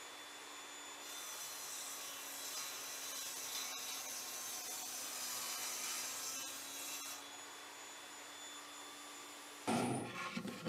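Evolution Rage 5S table saw running, its blade cutting through laminated chipboard on a sled for about six seconds, a brighter hiss over the steady motor hum, then spinning free. A short clatter near the end as the cut piece is handled.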